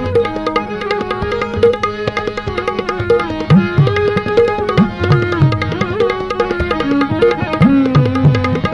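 Instrumental passage of a Gujarati ghazal: tabla strokes, the low drum's pitch sliding up and down, under a melodic line and a steady drone.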